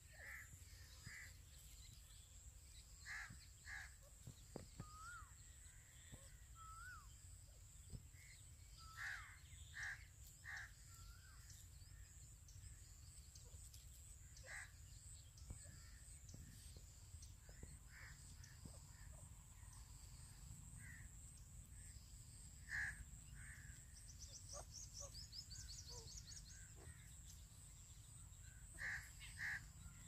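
Grey francolins calling softly: short notes, often in pairs, scattered through, with a couple of brief rising notes. A faint steady high whine runs underneath.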